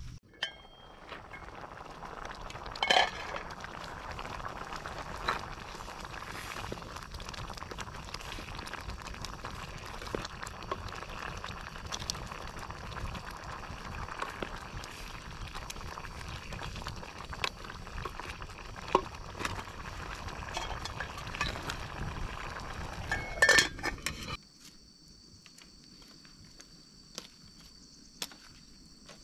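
A pot of food boiling hard over a wood campfire, bubbling and crackling while a wooden spoon stirs it and knocks against the aluminium pot, with the sharpest clinks about three seconds in and near the end of the stirring. About five seconds before the end it cuts to a much quieter stretch with a steady high whine and a few light taps.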